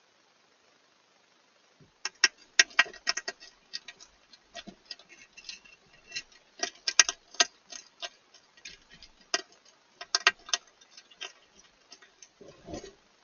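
Hedgehog eating dry food pellets from a bowl: rapid, irregular crunching and clicking of chewing, in bursts, starting about two seconds in.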